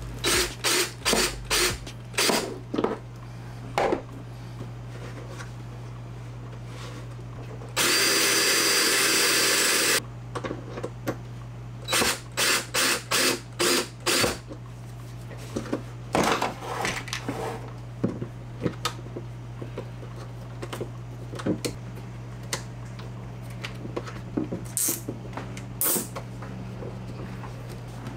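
Cordless drill run in a series of short trigger bursts, with one longer run of about two seconds about a quarter of the way in, then more clusters of quick bursts; a steady low hum runs underneath.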